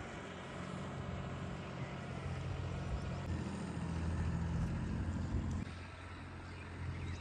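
A motor vehicle's engine running, a steady low drone that builds slightly and then drops away about six seconds in.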